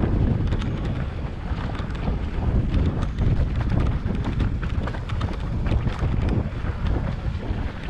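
Wind buffeting the microphone of a camera on a mountain bike riding downhill: a steady low rumble, with scattered clicks and rattles.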